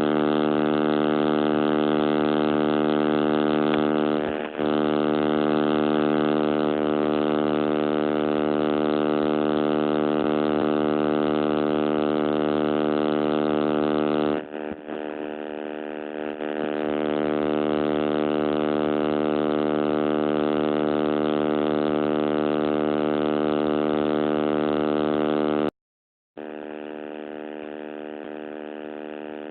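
Loud, steady electrical buzz from a damaged recording microphone, one pitched hum with many overtones masking everything else. It dips briefly a few seconds in, weakens for a couple of seconds mid-way, and near the end cuts out for a moment before coming back quieter.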